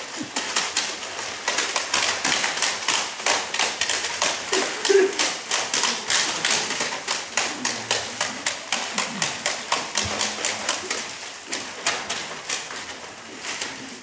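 Rapid, fairly even tapping by performers, several sharp taps a second that keep going without a break.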